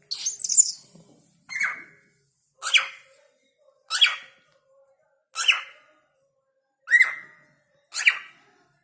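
Pet cockatiel calling: a jumbled call at the start, then six short, sharp calls spaced about a second and a half apart.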